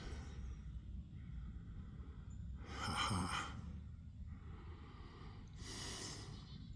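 A man breathing out heavily twice near the microphone, two soft sighs about three seconds apart, over a faint low rumble.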